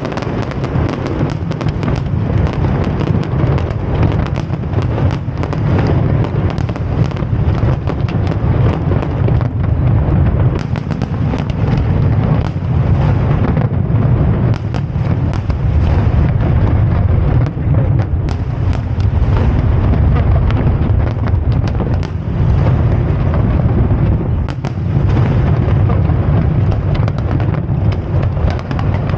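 Aerial fireworks display: a dense, continuous barrage of deep booms with many sharp cracks and bangs layered over them.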